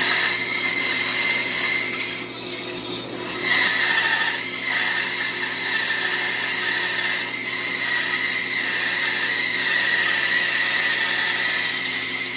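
Bandsaw cutting through a block of wood: a steady high whine with the rasp of the blade in the wood. It eases briefly about two seconds in, then picks up again.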